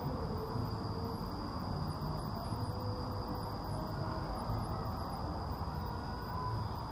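Outdoor ambience of a city park: a steady low rumble with a thin, steady high-pitched tone above it and faint wavering sounds far off.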